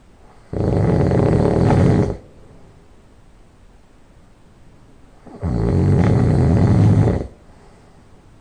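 A sleeping person's loud nasal snoring: two snores about five seconds apart, each lasting nearly two seconds, with quiet between.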